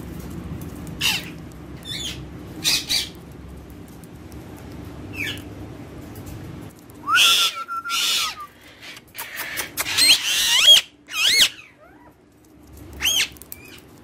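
Indian ringneck parakeet calling: short sharp squawks and chirps scattered through, a held whistle about seven seconds in, and a loud run of calls that swoop up and down in pitch around ten to eleven seconds in.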